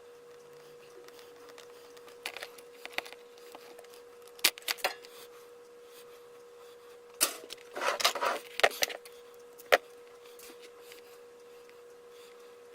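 Small hard plastic and metal parts and tools clicking and clattering as they are handled on a workbench: scattered taps, a busier rattle about eight seconds in and one sharp click soon after, over a steady faint hum.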